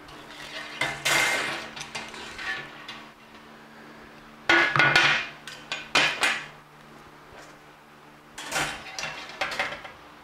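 Welded steel wire panel clanking and rattling in three bouts as it is handled and bent into a tomato cage.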